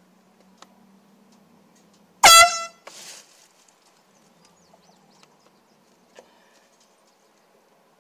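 Handheld canned air horn giving one short blast of about half a second, a little over two seconds in.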